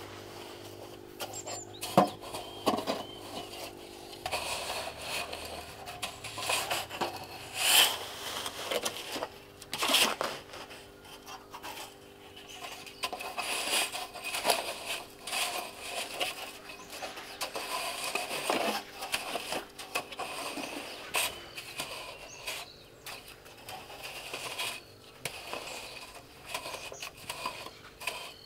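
Hand tools at work: irregular scraping and rubbing with scattered sharp knocks, the loudest knocks about 2, 8 and 10 seconds in.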